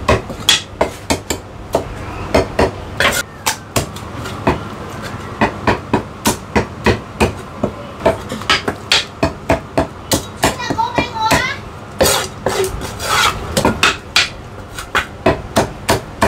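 Chinese cleaver chopping through cooked chicken on a thick wooden chopping block: a long run of sharp thwacks, often two or three a second, faster near the end. Voices are heard briefly a little before the middle.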